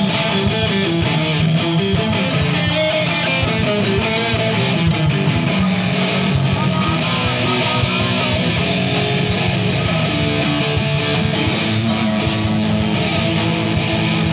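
Live rock band playing an instrumental passage: strummed electric guitar over bass and drums, amplified through the stage PA, with no vocals.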